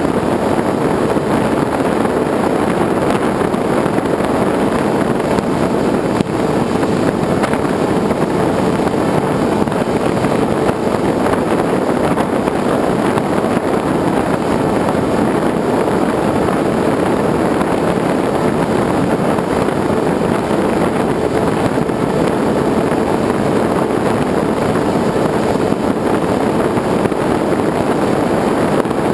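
Skysurfer FPV plane's 2200KV Turnigy electric motor and propeller running steadily under power, heard through the onboard GoPro's housing, mixed with wind rushing past the airframe. A faint steady hum sits under an even, unbroken drone.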